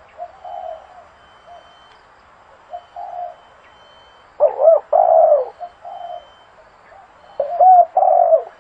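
Zebra dove calling: a few soft cooing notes, then two loud phrases of quick, wavering coos about halfway and near the end.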